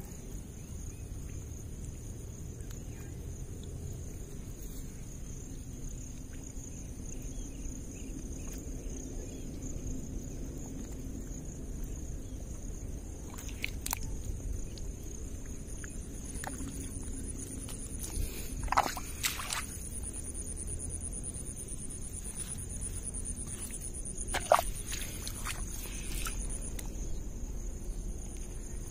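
Steady high-pitched chirring of crickets over a low outdoor rumble, with a few short sharp sounds, the loudest about two thirds of the way through and another near the end.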